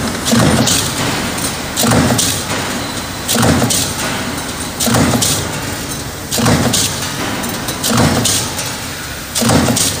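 Stamping press running a progressive die, cycling about once every one and a half seconds. Each stroke gives a clanking impact over the press's steady running noise.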